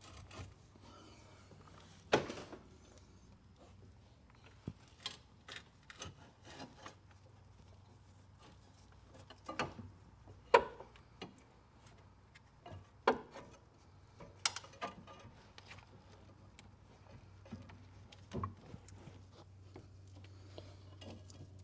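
Scattered knocks, clunks and rubbing as the original flooded lead-acid battery of a Polaris Sportsman 570 ATV is worked out of its tight compartment. About a dozen sharp knocks, the loudest about two seconds in and again between ten and fifteen seconds, over a faint steady low hum.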